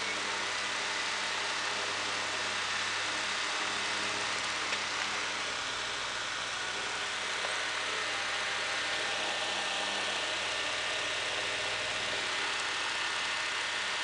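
Salvaged microwave oven transformer powering a magnetron, running with a steady electrical hum and buzz over an even hiss.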